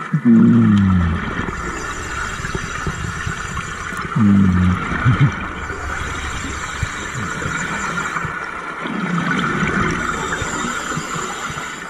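Compressor (hookah) diver breathing underwater through the air-hose regulator: a steady hiss of air with three louder bubbling exhalations a few seconds apart.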